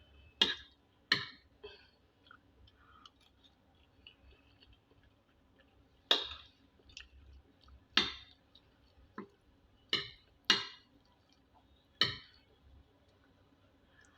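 Eating sounds: about eight sharp clicks and clinks at irregular intervals, some in quick pairs, as pepper stew and rice are eaten.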